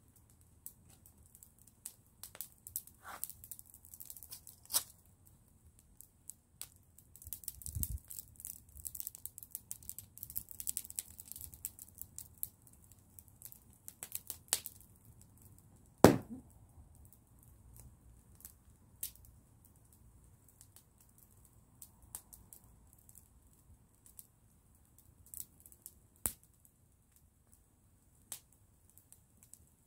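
Open wood fire crackling in irregular clusters, with scattered sharp pops, the loudest about sixteen seconds in, and a dull low thump around eight seconds in.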